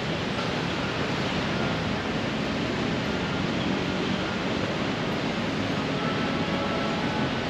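Steady, even rush of city traffic with no single event standing out.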